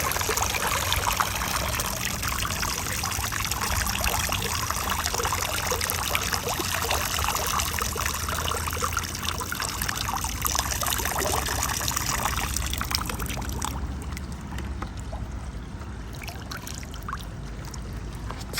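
Water draining out of an AIPER Seagull SE cordless robotic pool cleaner lifted from the pool, trickling and splashing back into the water. The flow thins about two-thirds of the way through.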